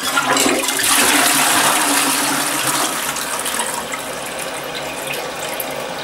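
Push-button toilet flushing as a test of its newly fitted flush valve: water rushes from the cistern into the bowl, starting suddenly with the button press and easing off slightly over the following seconds.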